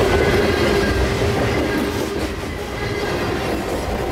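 Freight train rolling past close by: the wheels of hopper cars clattering over the rail joints with a rumble, a thin steady wheel whine on top, slowly fading.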